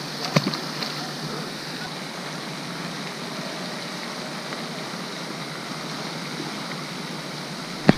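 Steady rushing hiss of splashing water from the pond's spray fountain, with one short knock about half a second in and a sharp click near the end.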